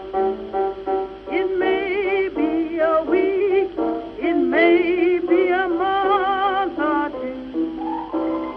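Music: piano chords, then a voice holding sung notes with a wide vibrato over the piano from about a second in until near the end.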